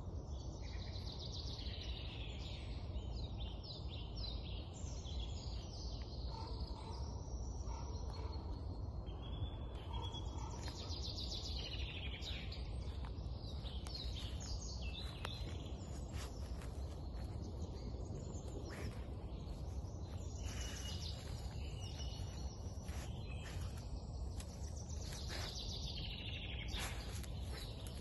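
Songbirds singing, many short overlapping calls and trills, over a steady low rumble.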